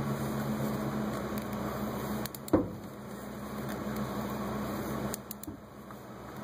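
A steady mechanical hum, with one sharp click about two and a half seconds in as the hum drops away. The click is a torque wrench breaking over as the fuel filter housing cap reaches its 30.5 newton-meter setting.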